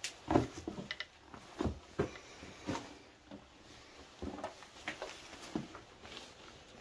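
Footsteps scuffing and knocking over loose rocks on a cave floor: about ten irregular steps and stone knocks, some with a low thud.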